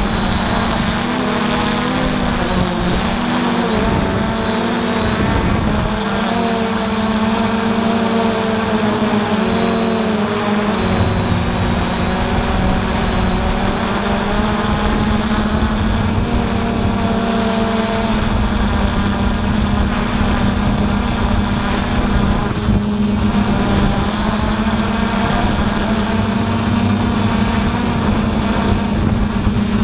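DJI F450 Flamewheel quadcopter's electric motors and propellers running in flight on 3S batteries, heard from the camera on board: a loud steady buzz with several higher tones that waver as the motors change speed.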